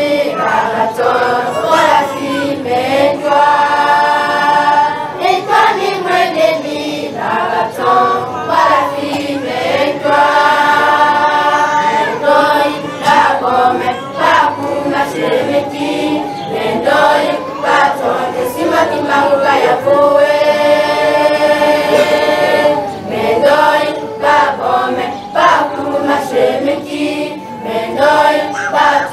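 A crowd singing together, women's and children's voices, with several long held notes.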